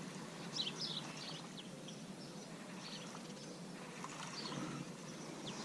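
Small birds chirping: short, quick falling notes, several close together about half a second to a second in, then a few scattered ones, over a steady low outdoor hiss.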